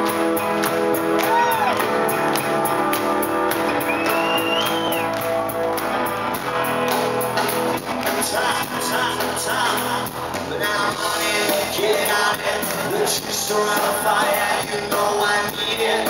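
Live rock band playing in a large hall, heard from the audience, with the singer singing into the microphone from about eight seconds in. A couple of whistles and shouts from the crowd rise over the music in the first few seconds.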